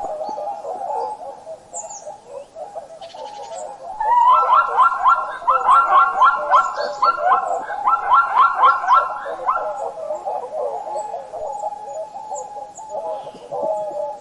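A group of animals calling, with steady chirping and chattering. From about four to ten seconds in there is a louder run of rapid, repeated calls.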